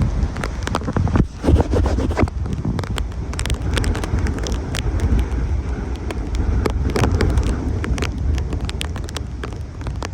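Hurricane-force wind gusting hard against the microphone in a deep, uneven rumble, with many sharp ticks and taps throughout. The strongest gust comes about a second and a half in.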